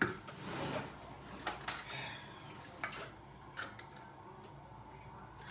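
Scattered clicks, clinks and knocks as a metal can of green beans is handled and set down, with a brief rustle or two.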